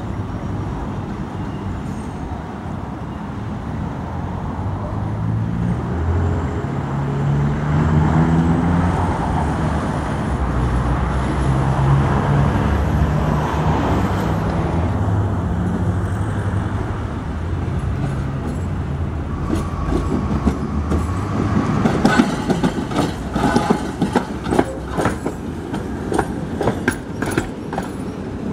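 A Tatra T3-VPSt tram approaching and passing close by, running along with street traffic. From about two-thirds of the way in, its wheels clatter rapidly over the rail joints as it goes past.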